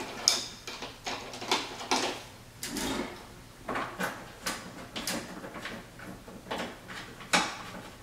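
A string of short clicks, rattles and rustles of small parts being handled: screws picked out and threaded by hand into the mounting holes of a car's front splitter.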